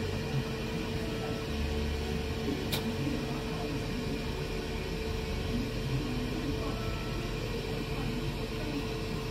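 Steady machine hum, a constant tone over a low rumble, with one sharp click about three seconds in.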